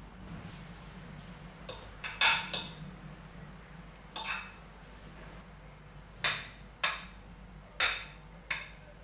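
A metal fork clinking against a saucepan and a ceramic baking dish while scooping out and spreading mashed potato: about eight sharp, irregular clinks, starting about two seconds in.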